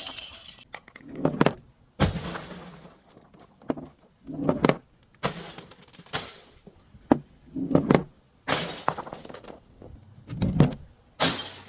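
Glass breaking and crunching in a run of about a dozen sharp crashes, roughly one a second, each trailing off briefly.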